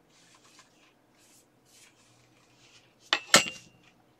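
Faint handling rustles of wooden futon-drawer panels, then about three seconds in two sharp clacks with a brief metallic ring as a panel is set down against something hard.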